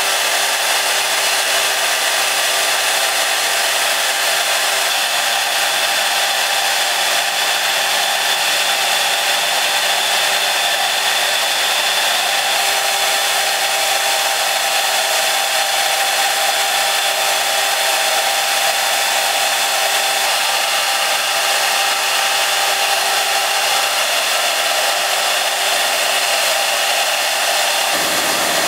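Spindle of a Raketa 5-axis CNC router running at high speed as a conical bit mills a water-cooled block of stone: a steady, high-pitched whine over cutting hiss. A lower, deeper sound joins near the end.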